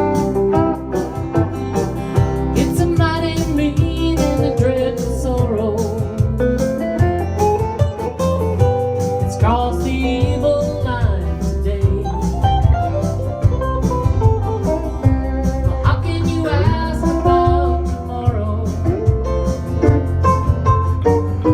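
Country song instrumental break: a slide guitar plays gliding lead lines over bass guitar and a steady beat.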